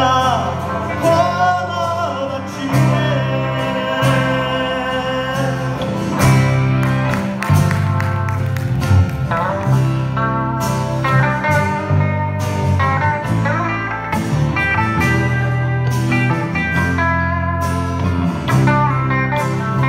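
Live band playing a slow ballad on acoustic guitar, electric bass, piano and electric guitar. A sung line trails off in the first few seconds, then an electric guitar lead with bent notes carries the melody over the band.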